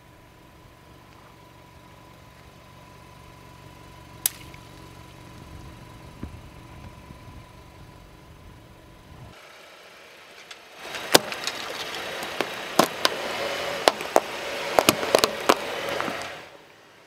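A car tyre rolling over a white crumbly object and crushing it: a dense crackle of crunching with many sharp snaps for about five seconds, starting about eleven seconds in. Before it, a low rumble with a faint steady tone and a single click.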